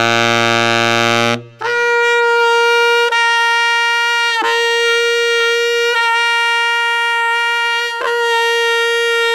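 Tenor saxophone playing a low C for about a second and a half, then holding the C two octaves higher. That high note is switched four times without stopping between the overtone, played with the low C fingering, and the normal fingering, as a tone exercise: shaping the mouth and throat to make the normal fingering sound as fat as the harmonic.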